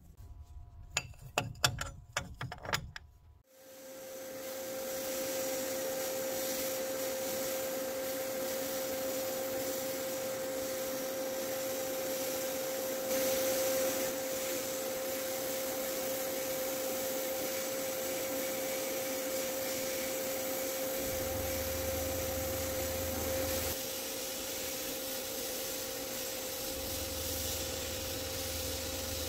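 Abrasive blasting in a sandblast cabinet: a steady hiss of air and grit from the blast nozzle on the knurled metal parts of a tap reseating tool, with a steady hum underneath. It starts about three and a half seconds in, after a few light clicks and knocks.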